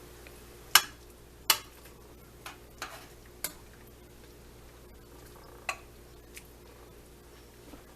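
A metal utensil clinking against a dish while soup is served: two sharp clinks about a second in, then a few fainter taps spaced out over the following seconds.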